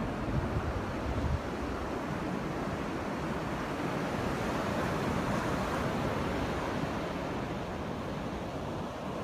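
Surf breaking on a sandy beach, a steady rushing wash of waves swelling a little in the middle. Wind buffets the microphone in the first second or so.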